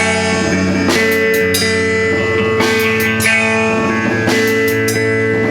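A band playing a song, led by strummed guitar chords.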